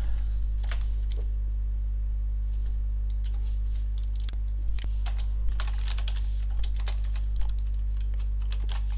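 Computer keyboard keystrokes: a few scattered clicks, then a quicker run of typing from about halfway, over a steady low electrical hum.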